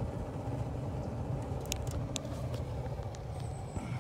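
Smudge pot orchard heater burning motor oil, running with a steady low chuffing rumble from its burner and stack. A couple of faint clicks come about halfway through.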